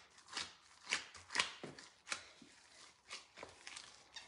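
Gloved hand squeezing and kneading soft dough in a glass bowl: a string of short, irregular, soft strokes.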